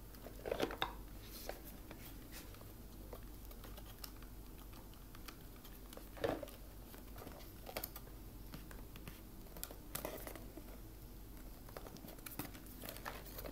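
Handling noise from a GoPro camera in its clear plastic housing, its remote and a cardboard box: scattered small clicks, taps and rustles, with louder knocks about half a second in and about six seconds in.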